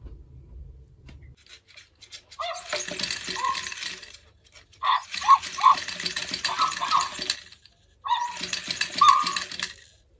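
Toy robot dog walking, its small geared motors whirring and rattling in three spells of two to three seconds each, with short electronic barks from its speaker mixed in.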